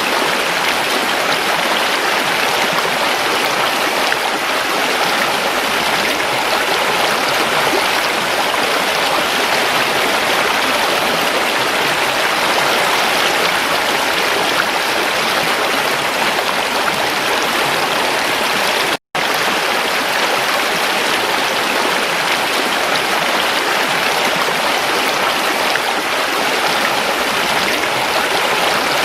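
Small river creek flowing steadily, a continuous rushing, splashing wash of water over rocks. The sound cuts out for a split second about two-thirds of the way through.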